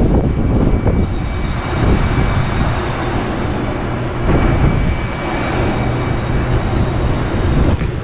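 Wind buffeting the microphone as a loud, steady rumble, with a steady low hum beneath it.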